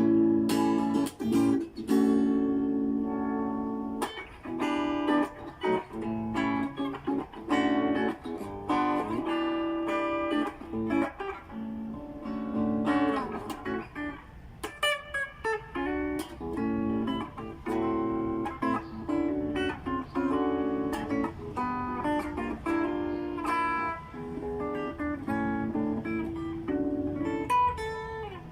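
Cistyle LP guitar played solo for a sound test: a run of picked notes and strummed chords, with a brief pause about halfway through.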